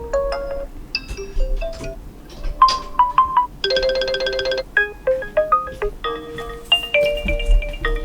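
A succession of short built-in alarm tones on an OPPO Reno7 5G, each a few chiming electronic notes, switching to a different tone every one to two seconds; a little before the middle one tone is a dense, buzzy chord.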